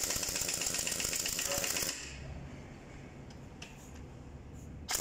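Heavy-duty impact wrench hammering on a truck's wheel nuts, tightening them as the wheel is refitted. It stops about two seconds in, and near the end spins up with a rising whine and starts hammering again.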